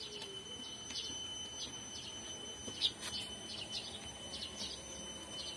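Birds chirping: short high calls scattered throughout, one louder chirp about three seconds in, over a faint steady high tone.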